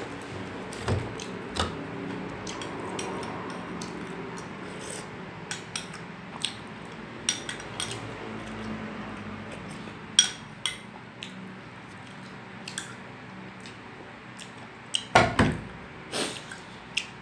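Metal spoon clinking and scraping against a glass bowl and a china plate while eating, with scattered light clinks and a cluster of louder knocks of glass on the plate near the end.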